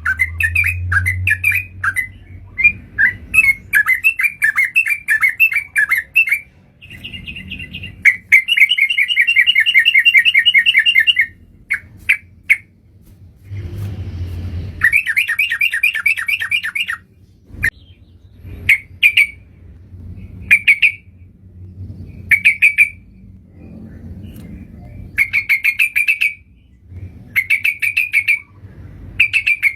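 Yellow-vented bulbul (trucukan) song played as a lure call: rapid bubbling, chattering phrases. Some run for about two seconds and others are short bursts, with short pauses between them.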